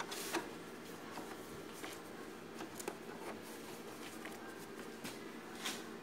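Office photocopier humming steadily, with light clicks and paper rustling as a stack of A4 sheets is handled and set into its document feeder; the loudest rustle comes near the end.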